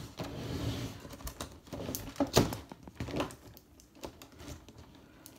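Cardboard toy box being opened by hand: an irregular run of clicks, scrapes and rustles as the box and its packaging are handled, growing fainter after about three seconds.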